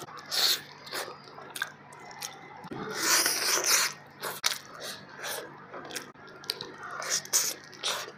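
A person chewing mouthfuls of fish biryani eaten by hand, with many short wet mouth clicks and lip smacks, and a louder noisy stretch about three seconds in.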